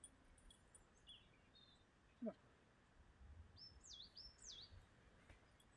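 Faint songbird calls: a few short high chirps, then two quick swooping whistled notes near the middle. Just past two seconds, a brief lower sliding squeak is the loudest sound.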